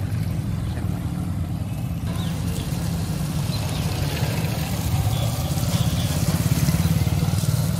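Motorcycle engines running, with a steady low rumble that grows louder in the second half as a motorcycle comes closer.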